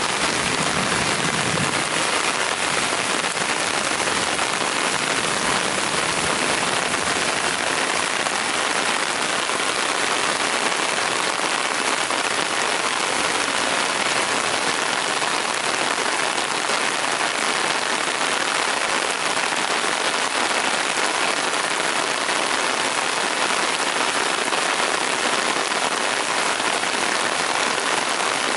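Heavy rain falling in a steady downpour: an even, unbroken hiss.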